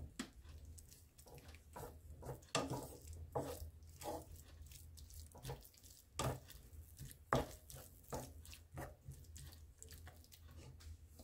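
Wooden spatula stirring carrots, onion and tomato in a frying pan: a string of soft, irregular scrapes and taps against the pan over a faint low hum.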